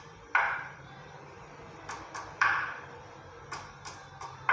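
Three knocks about two seconds apart in a slow, even beat, each sharp and dying away quickly, with a few faint clicks between them over a low steady hum.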